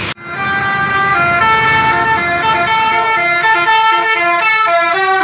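Bus telolet horn, a Basuri multi-tone air horn, playing a tune: steady notes that change about two or three times a second, with several horns sounding together in chords. It starts suddenly just after the beginning.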